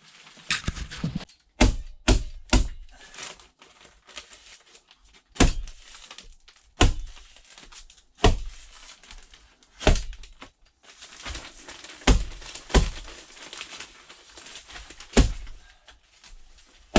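A series of sharp knocks and thuds, about a dozen, coming irregularly a second or two apart, with faint rustling between them.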